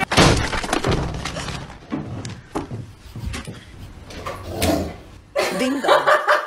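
A loud knock or bang at the start, then scattered knocks and clicks that die away. About five and a half seconds in, a short pitched sound like a voice begins.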